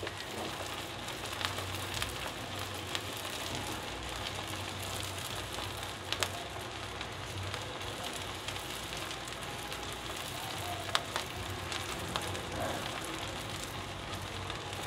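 Mustard oil sizzling steadily in a pan as sliced onions, garlic and dried red chillies fry for a tempering (baghar), while being stirred, with a few sharp clicks.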